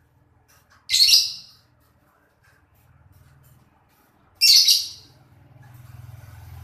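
Lovebird giving two short, high-pitched calls, about three and a half seconds apart.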